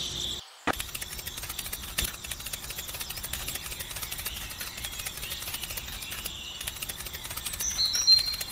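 Steady outdoor ambience with rapid faint ticking, and a few short high rising chirps near the end.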